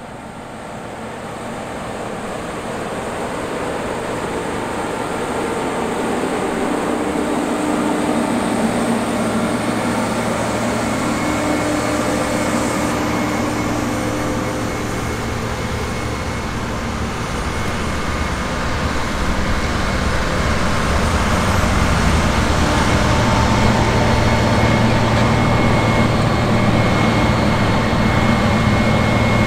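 Diesel engine of a John Deere 8850 articulated four-wheel-drive tractor (Kinze re-power) running steadily under load while pulling a tillage implement through the field, a deep steady drone with a low hum. It grows louder over the first several seconds and again past the middle.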